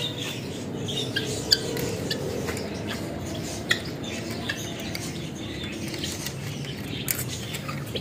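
Small aviary birds chirping and calling. A few sharp clicks come as a wire cage's hook latch is worked by hand.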